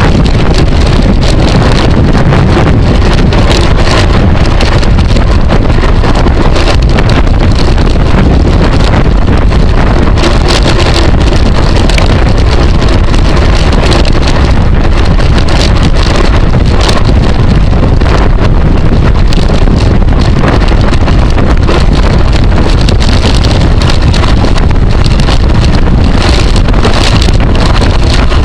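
Loud, steady wind noise buffeting the microphone of a camera riding on a racing bicycle at speed.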